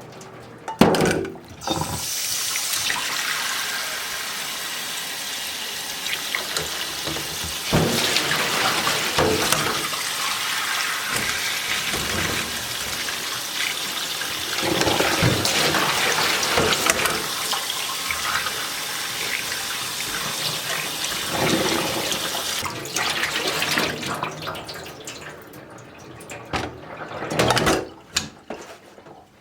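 Water running from a kitchen tap into a sink, with a few knocks of things being handled. The flow stops a few seconds before the end, leaving a couple of quieter clunks.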